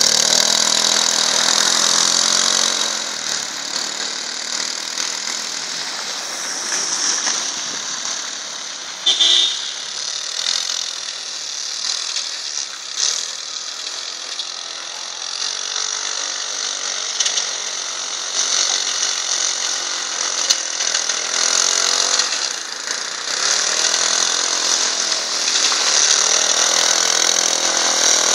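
Small engine of a homemade two-wheel-drive motorcycle running and revving up and down as it rides through snow. It is quieter in the middle and louder again near the end, with a brief loud sound about nine seconds in.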